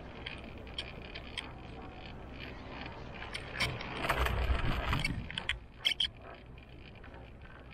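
Inside a moving cable car cabin: steady running and wind noise with scattered small clicks and rattles. About halfway through it swells into a louder rumbling stretch, followed by a couple of sharp clicks.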